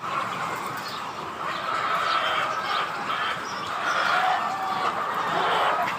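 A large flock of chickens clucking and chirping together in a constant, overlapping chorus.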